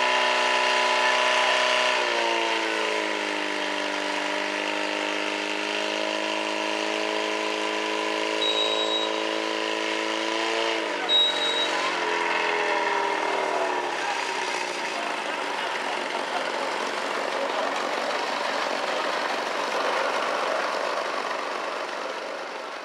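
Portable fire pump engine running hard while feeding the attack hoses. Its pitch drops as it is throttled back about two seconds in, and drops again around eleven seconds in. By about fourteen seconds in it has faded under a steady noisy hiss, and two short high beeps sound in between.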